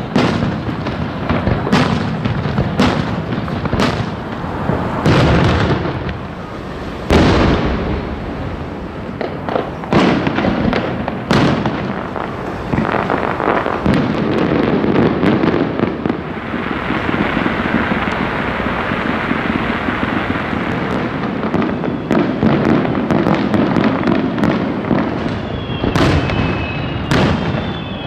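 Aerial firework shells bursting one after another: repeated loud bangs and booms, with a denser stretch of continuous crackling for several seconds after the middle.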